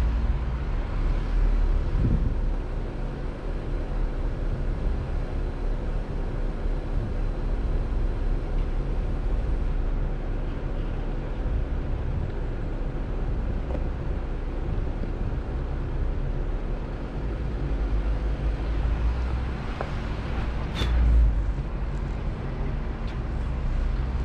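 Vehicle driving along a trail: a steady engine hum under a low rumble and wind noise, with one sharp knock about three seconds before the end.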